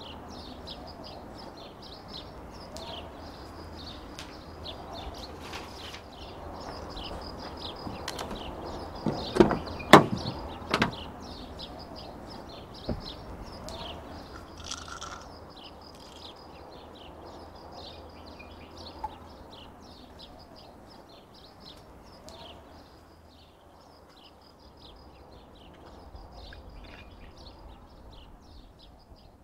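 Steady outdoor ambience of rapid high chirping throughout. About nine to eleven seconds in come three or four loud knocks and clunks from handling a car's open door, then a single sharper click a couple of seconds later.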